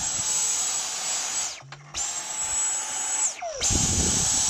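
Dyson V10 Animal cordless stick vacuum motor run in three short bursts of about a second and a half each. Each burst is a high-pitched whine over a rush of air that starts at once, then falls in pitch as the motor spins down when it is released.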